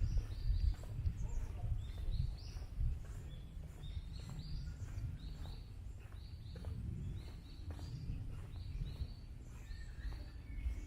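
Small birds calling with short high chirps, repeated about every half second, over footsteps on a trail and a steady low rumble.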